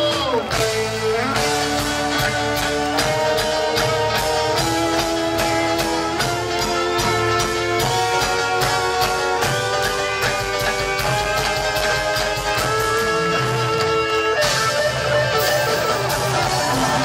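Live band playing an instrumental passage: electric guitars, keyboards, bass and drums with hand percussion, held melody notes changing about once a second over a steady beat.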